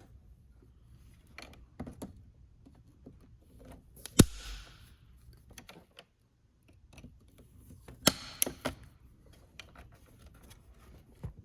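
Diagonal cutters snipping plastic from the edge of a fuse box lid to cut a wire slot: a few sharp snaps, the loudest about four seconds in and two more around eight seconds in, with small clicks and plastic handling noises between.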